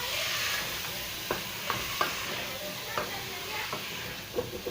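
A pot of meat-and-potato stew being stirred after green peas are added, with several irregular knocks of the stirring utensil against the pot over a steady sizzle.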